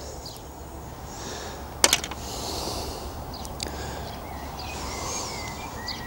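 Outdoor background with birds chirping now and then, and a quick cluster of sharp clicks about two seconds in.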